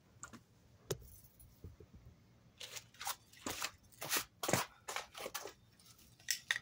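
A wooden board rolling a fire roll back and forth against a rough concrete slab: short rasping scrapes, about two a second, starting a couple of seconds in.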